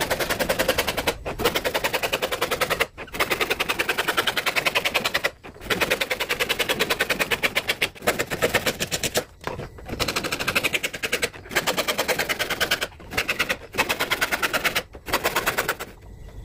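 Hand saw cutting through a wooden plank with fast, rasping strokes. The sawing stops briefly every few seconds.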